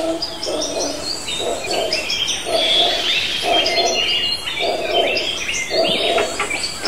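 Jungle ambience of many birds chirping and whistling at once, with a lower call repeating about once a second.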